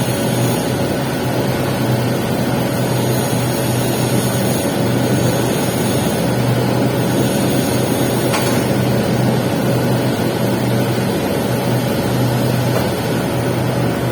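Electric arc welding on a pipe's capping pass: the arc's continuous steady hiss and crackle over a constant low machine hum, with no break.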